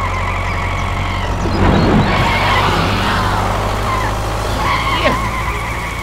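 Mini tractor engine running with a steady low rumble. Over it is a high whine that wavers up and down, louder for a moment about two seconds in.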